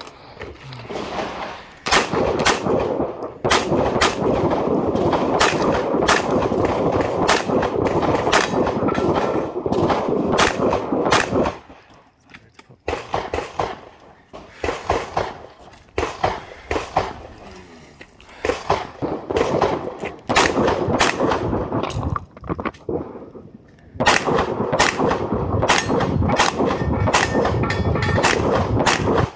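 Rapid strings of 9 mm pistol shots from an H&K VP9L, fired in quick pairs and runs with short pauses between groups. A heavy rushing noise lies under much of the shooting, dropping out for a couple of seconds about twelve seconds in and again shortly before the end.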